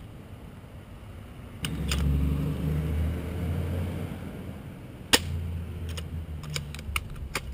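An airsoft sniper rifle fires once about five seconds in: a single sharp snap, the loudest sound here. A run of light clicks follows. A low rumble runs underneath from early on.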